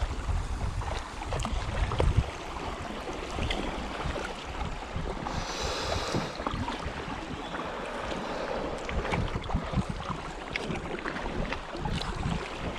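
Kayak paddles dipping into and splashing through river water, with small scattered splashes and drips, over a low rumble of wind on the microphone.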